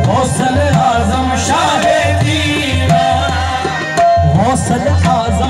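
A qawwali group performing. A male lead voice sings a long, wavering line over harmonium, with hand-drum strokes and rhythmic hand-clapping.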